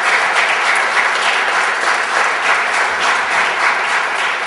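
Audience applauding steadily: dense clapping from a full hall.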